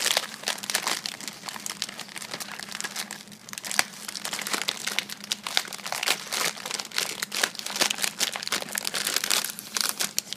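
Clear plastic film wrapping over a tray of chocolate biscuits crinkling continuously as it is handled and pulled back, with irregular crackles throughout.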